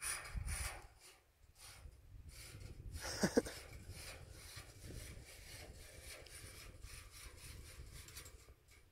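Steel fish tape sliding and scraping inside thin-wall galvanized steel conduit: a faint, irregular rasping, with a brief louder squeak a little over three seconds in.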